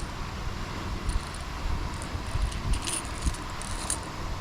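Light metallic jingling and clinking of fishing tackle being handled, a few short clusters, over steady wind rumble on the microphone.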